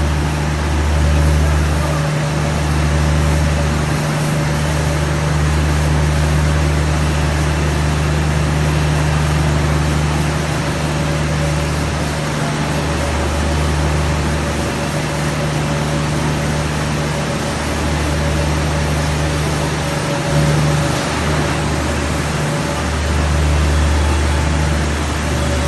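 Extrusion laminating machine running steadily: a continuous machine whir over a strong low hum and a faint steady tone, the hum dipping briefly a few times.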